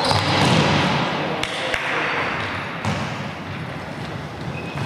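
Thuds of a futsal ball being kicked and bouncing on a sports-hall floor amid the general scuffle of play, with a couple of sharp knocks about a second and a half in.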